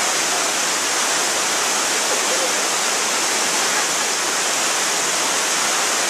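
Waterfall rushing: a steady, even hiss of falling water, brightest in the high range, that never lets up.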